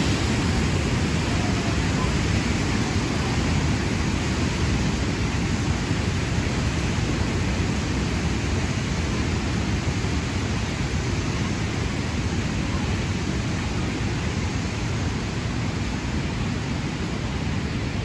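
Steady rush of a waterfall and river rapids, an even roar that slowly grows quieter.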